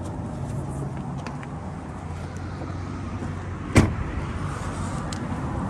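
Steady low mechanical hum, with one sharp knock a little after halfway through.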